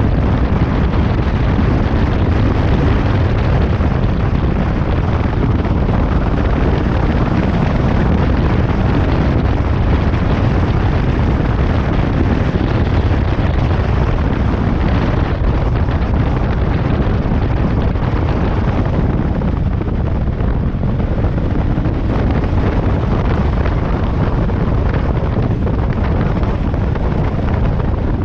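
Motorcycle riding noise: heavy wind rumble buffeting the microphone over the running bike, loud and steady throughout.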